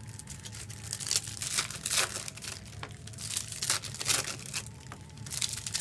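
Foil trading-card pack wrappers crinkling and tearing as packs are opened and handled, in a run of irregular crackles.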